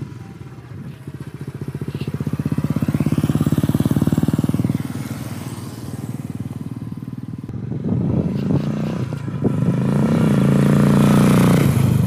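Royal Enfield Bullet single-cylinder engine thumping through an aftermarket Wild Boar silencer, with a deep, full exhaust beat. It rides slowly past, swelling and fading, then from about 8 s it is revved harder and accelerates, rising in pitch and getting louder toward the end.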